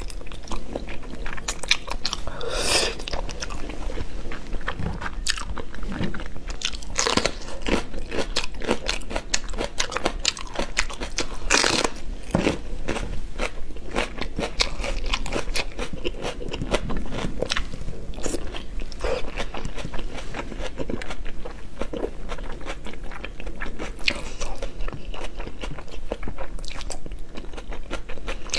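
A person biting and chewing sauce-glazed braised meat, with a continuous run of small mouth clicks and smacks. A few louder bites come about three, seven and twelve seconds in.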